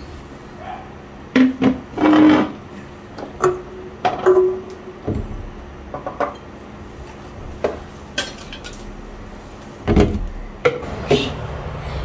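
Glass storage jars and a metal mug stand being lifted and set down on a tiled kitchen countertop while it is wiped: scattered clinks and knocks, some briefly ringing, with a heavier thump about ten seconds in.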